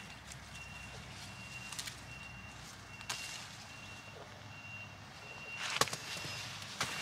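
A high steady beep repeating evenly, about once a second, over the rustle of pepper plant leaves being handled. There are a few sharp clicks, the loudest near the end.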